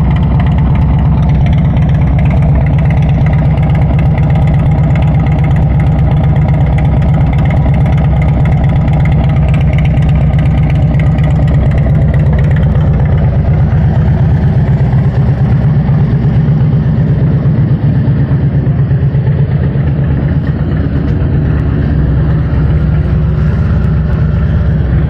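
Motorcycle engine idling steadily through 4.5-inch Shark slip-on mufflers and Bassani header pipes, a loud, deep exhaust note.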